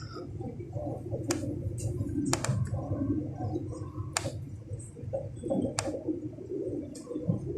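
Electric commuter train running between stations, heard from inside the carriage: a steady low rumble of the running gear, with about five sharp clicks or knocks spread a second or two apart.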